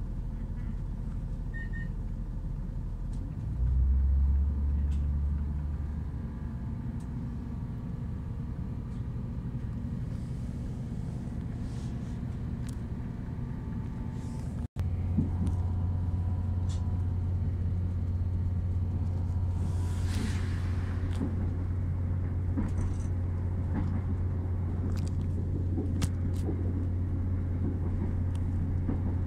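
Class 170 Turbostar diesel multiple unit heard from inside the carriage: a low rumble from its underfloor diesel engine, which swells about four seconds in as the train pulls away from the station. After a momentary dropout halfway through, a louder, steady low drone follows as the train runs along the line.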